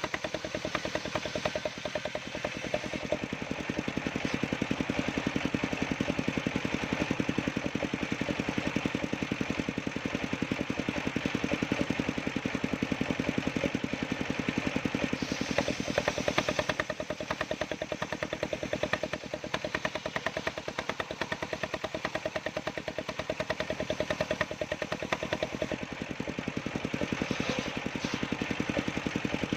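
Engine-driven homemade sawmill running steadily as it saws waru (sea hibiscus) wood, with a brief burst of higher hiss about halfway through.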